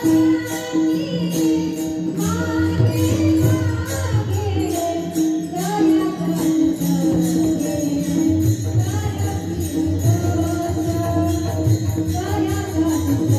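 Marathi devotional kirtan music: a woman singing over a steady held drone, with small hand cymbals (taal) jangling a steady beat.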